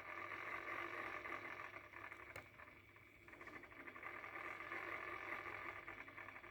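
A small motor whirring steadily with a fast, fine buzz, dipping briefly about halfway, with a single sharp click just before the dip.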